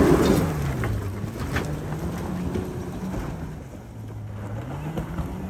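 Jeep Wrangler Rubicon working up an off-road climb on its winch: a steady motor tone drops in pitch about a second in and rises again near the end, with a few light knocks along the way.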